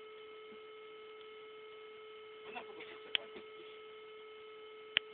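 Faint steady electrical hum made of several steady tones, a high whine among them. A brief faint murmur of voices comes in about halfway through, and two sharp clicks sound, one shortly after and one near the end.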